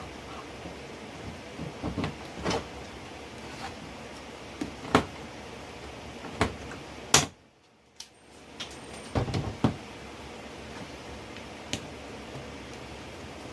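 Scattered clicks and knocks of hand tools and parts being handled during a pop-rivet repair on plastic. A sharper click comes about seven seconds in, and then the sound drops out briefly.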